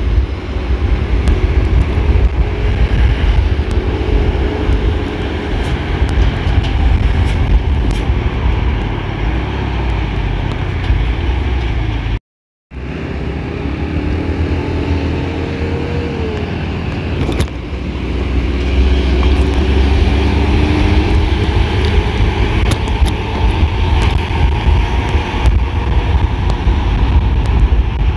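Road vehicle engines running on the move, with a heavy low rumble throughout and engine tones that rise and fall. The sound cuts out briefly about twelve seconds in.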